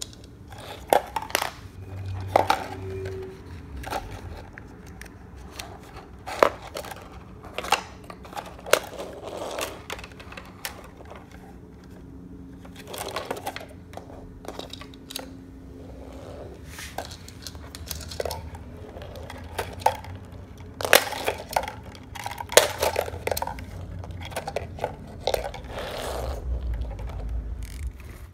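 Hard plastic toys knocked together and against a wooden floor: irregular sharp clicks and knocks, some in quick clusters.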